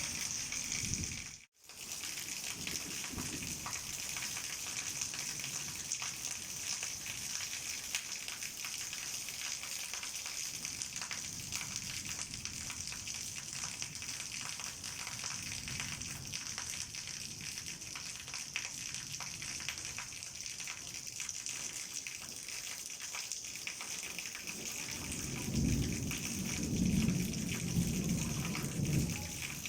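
Heavy rain pouring steadily, a dense hiss of drops. The sound cuts out for a moment about a second and a half in, and a low rumble swells near the end.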